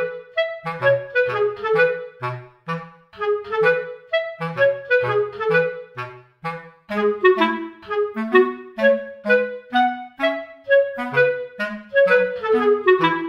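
Background music: a light tune of short, separate woodwind notes, about two to three a second, over a bass line.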